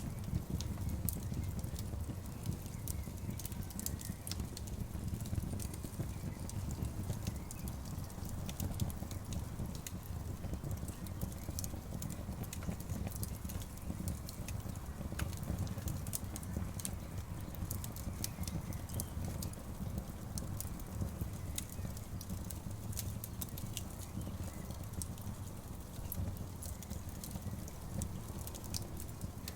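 Wood campfire crackling, with sharp pops scattered irregularly over a low, steady rumble.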